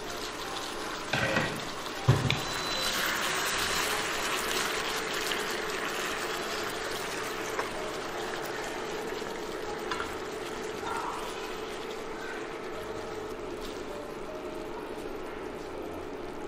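Soy-braised chicken drumsticks sizzling and bubbling in a reducing sauce in a wok while a wooden spatula stirs them. Two knocks about one and two seconds in as the glass lid is lifted off and set down; the sizzling is loudest a few seconds in, then eases.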